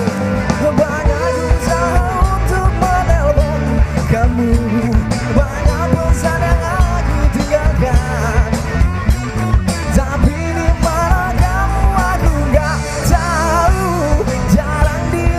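Live rock band playing loudly, with a steady drum beat and a singing voice or lead line weaving over it.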